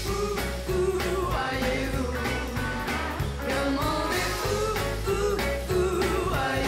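Upbeat rock-style jingle with a steady drum beat, bass and a voice singing: the title music that opens a TV news round-up segment.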